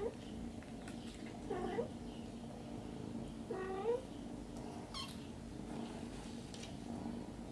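Kittens mewing while nursing: two short mews about two seconds apart, each bending upward at the end, then a brief high squeak that falls in pitch.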